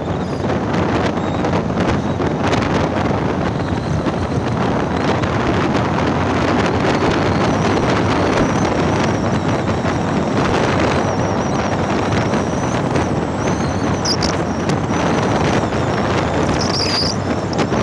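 Wind rushing over the microphone of a moving motorcycle, a loud steady roar mixed with engine and road noise. A few brief high chirps cut through near the end.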